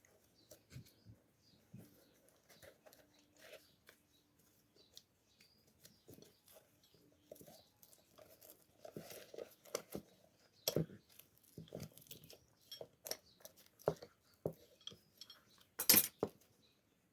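Scattered clicks, rustles and light taps from a shoe and its parts being handled during a repair, growing busier in the second half, with a sharper, louder knock about a second before the end.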